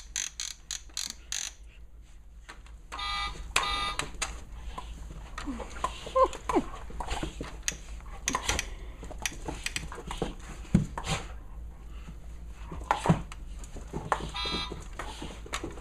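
Toy horn giving short buzzy honks, twice about three seconds in and again near the end, amid scattered clicks. A baby squeals and coos in between.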